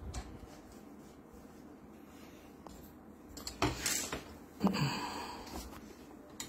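Quiet hand-handling sounds from a plastic printer developer unit being taken apart, with two short rustling scrapes a little past halfway, the second the louder.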